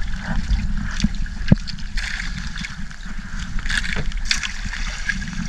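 Drift gillnet being hauled hand over hand over the gunwale of a small wooden boat at sea: wet rustling of netting and scattered knocks against the hull over a steady low rumble.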